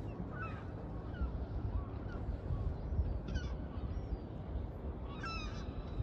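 Young gulls calling: a series of short, thin, rising cries, the clearest a little past halfway and near the end, over a steady low rumble.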